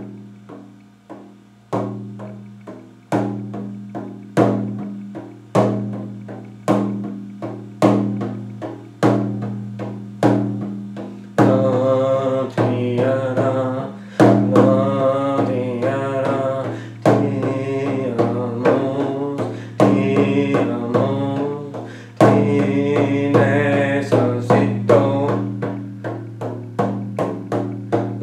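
Rawhide frame drum struck with a padded beater at a slow, even beat of about one stroke a second, each stroke ringing deep. From about eleven seconds in, a man's voice chants over the drum.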